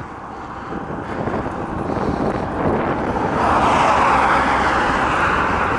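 Highway traffic noise from cars driving past in the lane alongside, with wind on the microphone; the noise grows louder about three seconds in.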